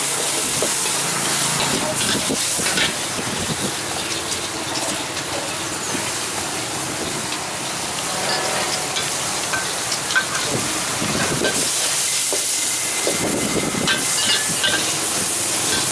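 Stir-fry of crispy pork and holy basil sizzling in a wok over a high flame, with the metal spatula scraping and clacking against the wok as the food is tossed.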